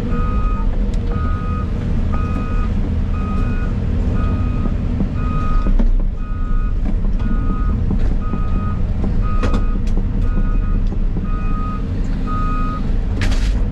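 A heavy machine's backup alarm beeps steadily, roughly once every 0.8 s, over the constant low rumble of the excavator's diesel engine. Occasional knocks, and a sharp clank near the end.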